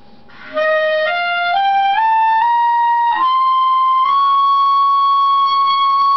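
Clarinet playing a climbing run of short notes, about two a second, from about half a second in. It then holds one long, high note in its third-octave register from about four seconds in.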